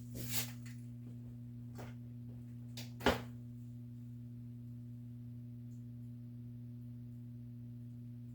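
A steady low hum with a few short knocks, the loudest about three seconds in.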